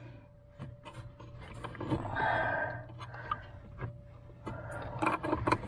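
A woman's heavy breath out, about two seconds in, as she strains at a tight wiring connector under a car dashboard. Light plastic clicks and the rustle of the wiring harness being handled come and go around it.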